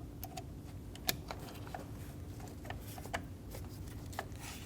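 Small, sharp plastic clicks and taps, about half a dozen scattered irregularly, from a door lock actuator and its cable end being handled and fitted together, over a faint steady hum.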